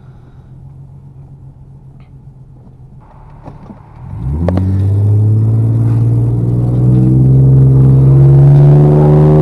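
Ford Explorer Sport Trac's 4.0-litre V6 with full bolt-on modifications, running low and steady, then accelerating hard from about four seconds in, its note getting louder and climbing steadily in pitch.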